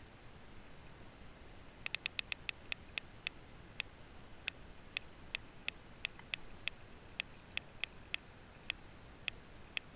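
A series of sharp clicks recorded underwater. They start about two seconds in at roughly eight a second, then slow to irregular clicks, two or three a second, over a faint hiss.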